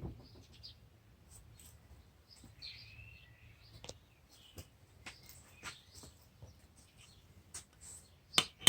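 Scattered faint clicks and taps of handling, a short bird chirp about three seconds in, and one loud sharp click near the end.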